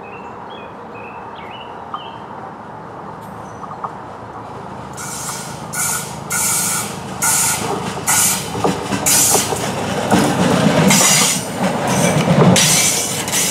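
NJ Transit River Line Stadler GTW diesel light-rail railcar approaching on a curve and passing close by, growing steadily louder. From about five seconds in its wheels squeal on the curved track in repeated high bursts, and the low engine rumble is strongest near the end.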